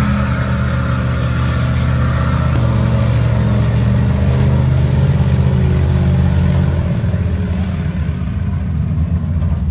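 Big engine running under load, its pitch stepping up about three seconds in and dropping back near the end.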